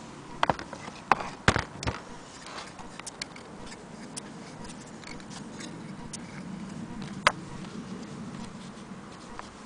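Sharp metallic clicks and knocks as an antique Willcox & Gibbs sewing machine is handled: four in the first two seconds, one more about seven seconds in, with lighter irregular ticking between.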